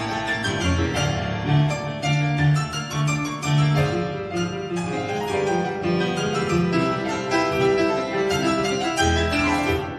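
Instrumental classical-style music led by a keyboard, with many quick, sharply struck notes.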